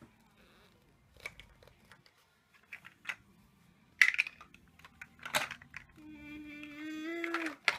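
Large plastic toy building blocks clicking and knocking as a toddler handles them: a few scattered clacks, the sharpest about four seconds in. About six seconds in the toddler makes a long, steady vocal sound.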